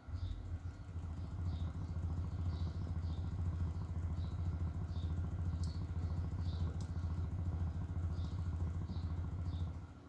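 Mutant subwoofer playing a steady deep bass tone, its cone vibrating hard with a buzzy edge; the tone cuts off shortly before the end.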